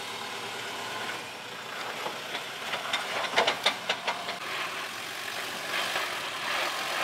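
A four-wheel drive's engine running at low revs as it crawls over rocky ruts, with a cluster of sharp clicks and knocks about two to four seconds in.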